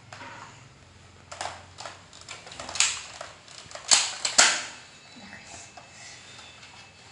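Nerf blasters firing foam darts, with darts clacking against targets: about half a dozen sharp pops and clacks, the loudest two coming about half a second apart near the middle.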